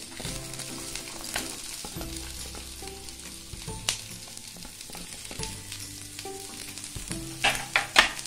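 Diced onion sizzling in a spoonful of olive oil on a flat tawa as handfuls are dropped in to be lightly fried. A few sharp clicks are heard, several close together near the end.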